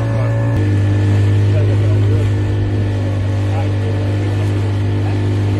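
A 40 hp outboard motor on a small open boat running steadily at speed. Its note shifts slightly about half a second in.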